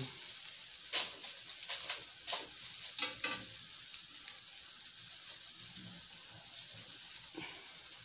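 Pupusas sizzling on a stovetop comal and griddle, a steady high hiss. A few short scrapes and taps of a spatula against the pan come about one to three and a half seconds in.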